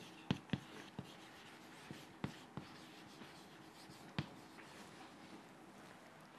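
Chalk writing on a chalkboard: faint scratching broken by sharp taps as the chalk strikes the board, the clearest near the start and again about four seconds in.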